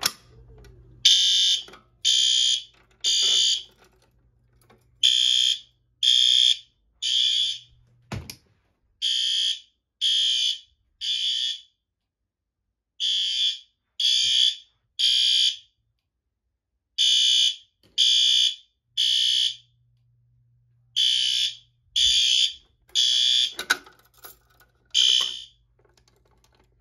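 Fire alarm horn, a System Sensor L-Series P2RL horn strobe, sounding the temporal Code 3 evacuation pattern: three short, loud, high-pitched blasts, a pause, then three more, repeated about six times. One sharp knock comes between two of the groups.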